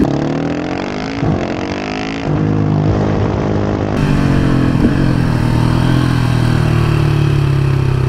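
KTM 690 SMC R's single-cylinder four-stroke engine under way. It revs up with rising pitch over the first two seconds, with a short break about a second in, then pulls on at a steadier, slightly louder note.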